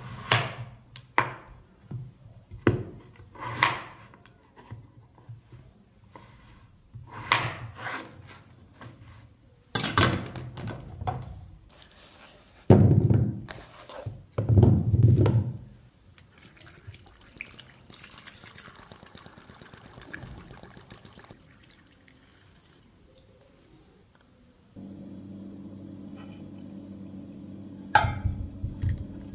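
A kitchen knife cuts through raw peeled potatoes on a plastic cutting board, a run of sharp chops. About thirteen seconds in, the chunks are slid off the board into a nonstick frying pan with two loud thuds. A softer stretch like water pouring follows, then a steady low hum, and near the end the cooked potato chunks tumble from the pan into a glass bowl.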